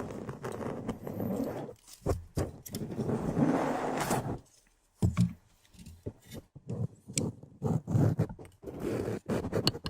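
Close-miked ASMR trigger sounds: rough scraping and rubbing right at the microphone, with scattered sharp clicks. They break off for about half a second midway.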